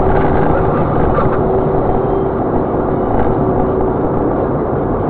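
Steady road and engine noise of a moving car, an even rumble with a faint steady hum that fades out about halfway through.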